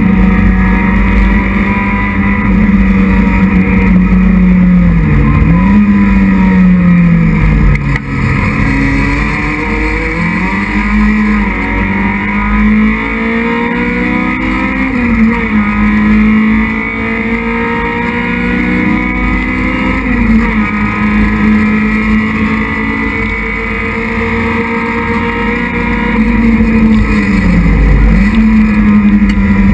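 Citroën Saxo race car's engine heard from inside the cabin at racing speed, loud and held high. Its pitch drops and climbs back a few times as the car slows and accelerates again.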